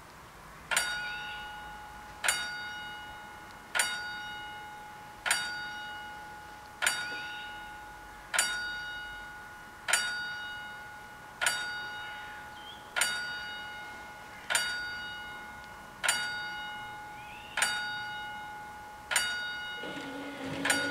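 Level-crossing warning bell striking about every second and a half, each stroke ringing out and fading, warning that the crossing is closing for a train. About a second before the end a steady low hum starts up as the barriers begin to lower.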